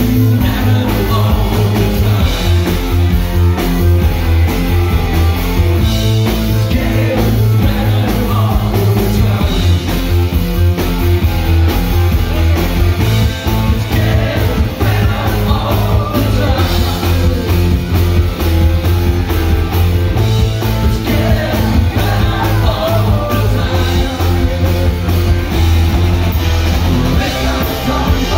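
A rock band playing live at full volume: electric guitar and a drum kit driving a steady beat, with a male lead vocal sung over it.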